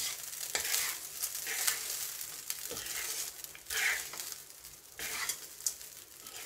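Wooden spatula stirring and scraping coconut rice around a non-stick pan, a swish with each irregular stroke over a light sizzle from the still-hot pan.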